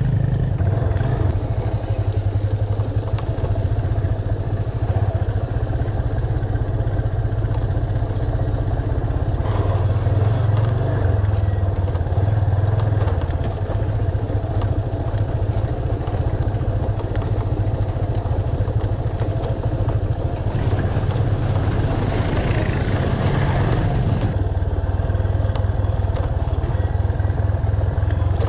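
Yamaha FZ25's freshly rebuilt 249 cc single-cylinder engine running steadily under way on a rocky dirt track. A louder rushing noise rises over it for a few seconds past the middle.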